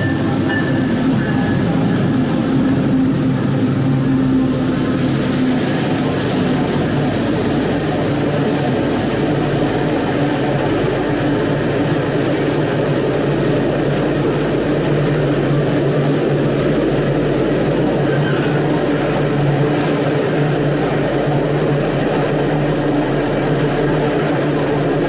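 A diesel freight locomotive passes close, then a long line of freight wagons rolls by: a loud, steady rumble of steel wheels on rail under a low, even engine drone.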